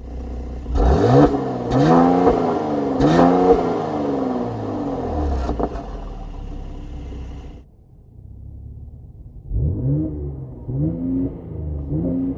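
Mercedes-AMG C43's 3.0-litre twin-turbo V6, heard through its Performance exhaust, revved in three quick blips that rise and fall back, with a couple of sharp cracks among them. It then holds steady before dropping away, and three more rev blips follow near the end.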